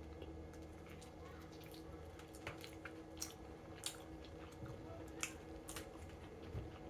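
Faint wet chewing and mouth sounds of someone eating chicken wings, with scattered short clicks and squishes spread through the pause.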